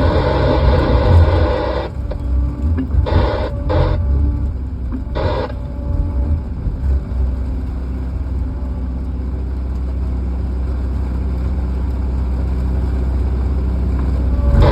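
A vehicle engine running with a steady low hum, with a few short bursts of rushing noise in the first five seconds or so.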